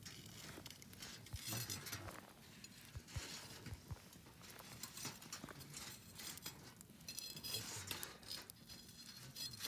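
Wood campfire crackling, with many sharp irregular snaps and pops over a soft hiss.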